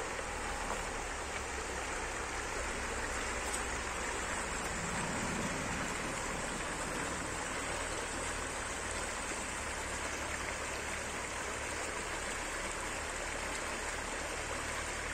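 Shallow river running over stones and rippling in a steady rush of water.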